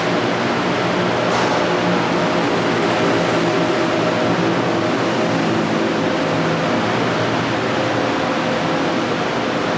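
BTS Skytrain electric train at the station, a steady loud rumble of running noise with a low hum through it and a brief hiss about a second and a half in.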